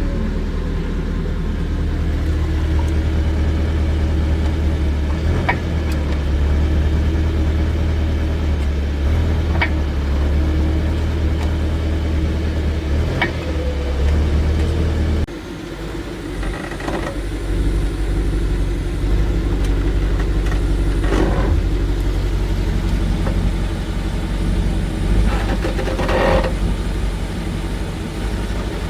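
BMW E65/E66 7 Series on the move, with a steady low drone and a sharp knock every few seconds, about six in all, from the rear differential (final drive), which the owner reports as knocking. The drone changes abruptly about halfway.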